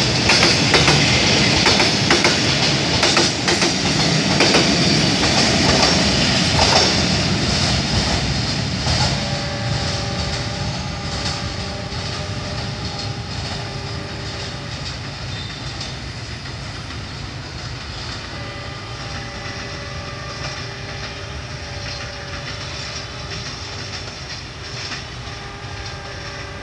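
Freight train wagons rolling past close by, their wheels clattering over the rail joints. The noise fades over several seconds as the train draws away, leaving a faint squeal of wheels on rail that comes and goes.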